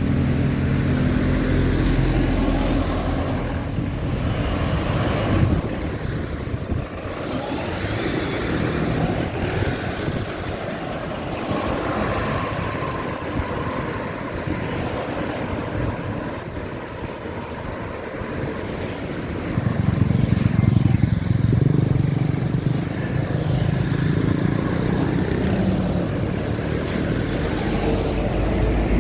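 Road traffic passing, with the low, steady engine note of a heavy vehicle close by at the start and again, louder, from about twenty seconds in.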